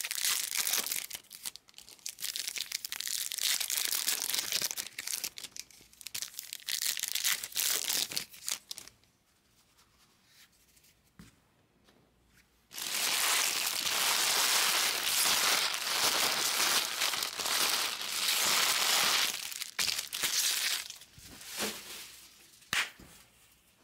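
Crinkling and tearing of trading-card pack wrappers as packs are opened and cards handled. A few seconds of near quiet in the middle are followed by a longer, steadier stretch of crinkling, then a few light clicks near the end.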